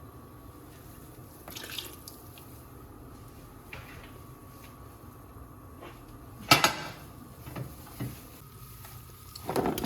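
Kitchen clatter of pots, dishes and utensils: a few separate knocks with quiet gaps between them, the loudest a sharp pair about six and a half seconds in, and a louder rattle starting near the end.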